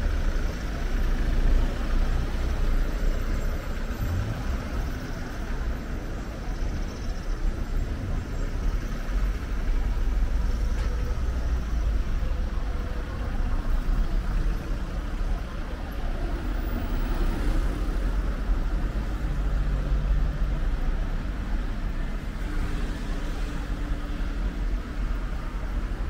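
Street ambience of a resort town, made up of a steady low rumble of road traffic with cars passing.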